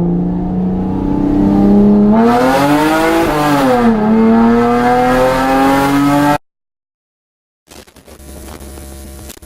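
Mitsubishi Eclipse GT's 3.8-litre V6 running through newly fitted headers and an aftermarket exhaust. It is blipped once about two seconds in, its pitch rising and then falling back to idle. The engine note cuts off abruptly past the middle, and a few faint clatters follow.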